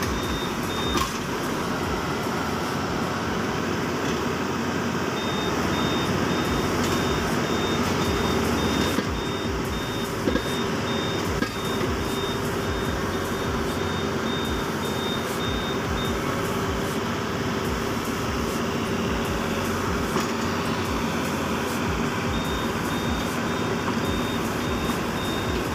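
Yanmar ViO55 mini excavator's diesel engine running steadily under load as the machine works its way down off a truck bed, with a few sharp metal clanks about nine to eleven seconds in. A high warning beeper sounds over it in long stretches.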